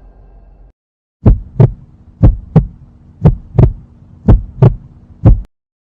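Heartbeat sound effect: deep, low thumps in lub-dub pairs, four double beats about a second apart and a last beat, like a slow pounding heart. It follows a faint low ambient hum that cuts off just before.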